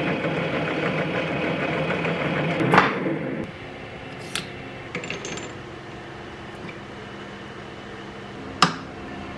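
Small benchtop metal lathe running with a flat file held against the spinning steel part, cutting off about three and a half seconds in. After that come a few sharp metallic clicks and taps from handling the part and tooling, the loudest near the end.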